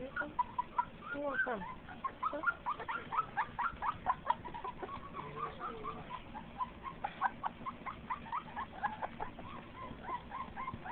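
Young pit bull puppies whimpering and squealing: a rapid run of short, high squeaks, several a second.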